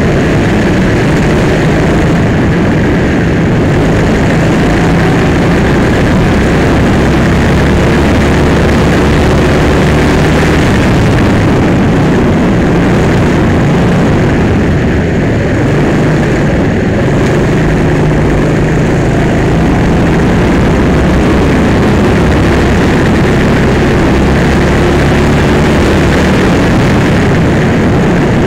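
Go-kart engine running loud and close, heard from on board the kart, its pitch rising and falling as the driver accelerates and lifts through the corners.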